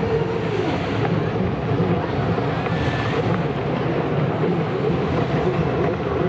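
Several racing jet skis running at speed together, a steady mixed engine noise with wind on the microphone.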